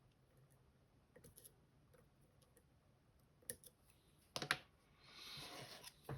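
Small sharp clicks of lock picks working the sliders and pins of an M&C Color+ dimple lock, with a cluster of louder clicks about four and a half seconds in, then a brief scraping sound and one more click near the end.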